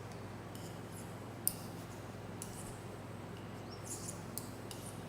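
Knitting needles clicking lightly and irregularly while stitches are worked, with one sharper click about a second and a half in, over a steady low hum.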